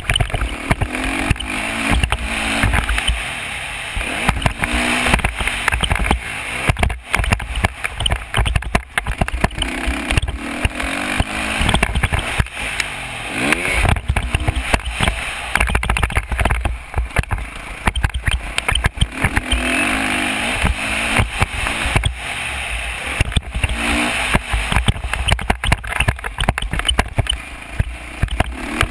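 Dirt bike engine running under load around a motocross track, its pitch rising and falling as the throttle opens and closes. Heavy wind buffeting on the camera's microphone drowns much of it.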